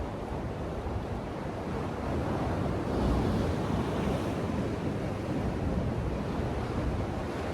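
Ocean surf washing in continuously, swelling louder about three seconds in, with a low rumble of wind on the microphone.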